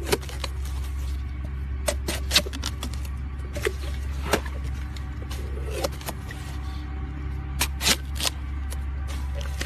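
A large knife cutting and splitting a fresh bamboo shoot: a string of sharp, crisp cracks and snaps, unevenly spaced, over a steady low hum.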